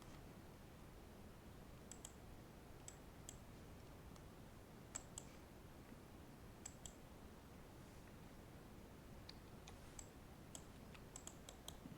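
Faint, scattered clicks of a computer mouse over near-silent room tone, some in quick pairs, with a quick run of clicks near the end.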